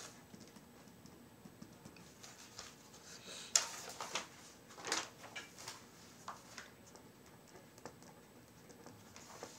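Typing on a computer keyboard: irregular clicks and taps, bunched in the middle, the loudest about three and a half seconds in.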